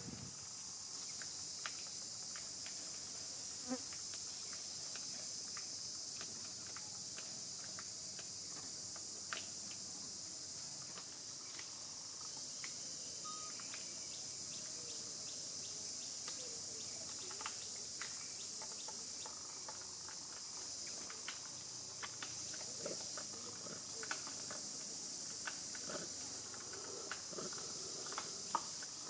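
Steady, high-pitched insect chorus that never lets up, with scattered faint clicks and small rustles beneath it.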